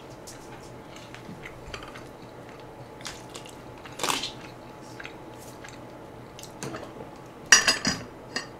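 Mukbang eating sounds: chewing and biting, with scattered light clicks of dishes and utensils and a short burst of louder clatter near the end.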